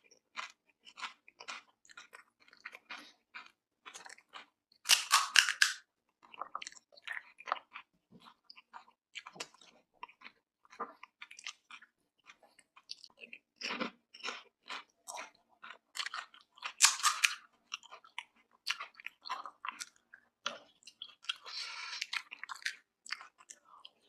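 Close-miked chewing and crunching of crisp pani puri shells, a quick run of small crackles with two louder crunches, about five seconds in and again about seventeen seconds in.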